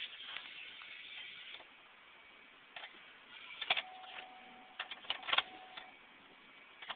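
Clicks from a 2003 Chevy Trailblazer as the key is turned, with a steady electronic tone for about two seconds in the middle. The engine does not crank or start, the intermittent no-start fault.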